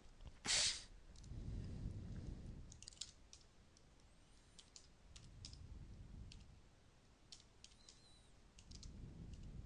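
Computer keyboard keys clicking, a few scattered keystrokes with pauses between them. A short, louder rush of noise comes about half a second in.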